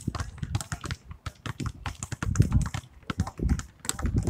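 Several basketballs being dribbled at once on asphalt: irregular, overlapping bounces, several a second.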